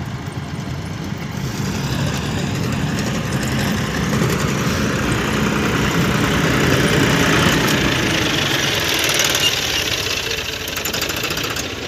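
John Deere 5405 tractor's diesel engine running steadily while it pulls a Rajindra elevator soil loader, the loader's conveyor running as it scoops and lifts soil. The machine noise grows louder through the middle as the camera moves in close.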